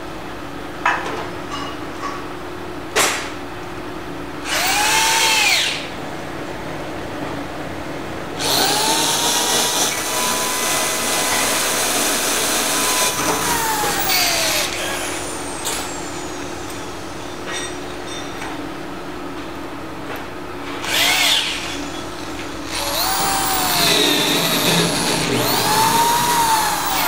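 Handheld electric drill drilling holes in the aluminium top of a boat fuel tank for the fuel sender unit's five-hole mounting flange. It runs four times: a short run, a long one of about five seconds, then two more near the end. Each run rises in pitch as the motor spins up and falls as it winds down. A couple of sharp clicks come in the first few seconds.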